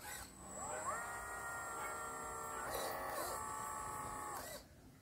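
Small electric motors of a homemade 1/14-scale RC excavator whining as the arm curls and lifts a bucket of sand. The pitch rises as they start, shifts about halfway through as the motion changes, and the whine stops shortly before the end.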